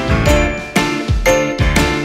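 Background music: a bright, tinkling tune over a steady beat of about two beats a second.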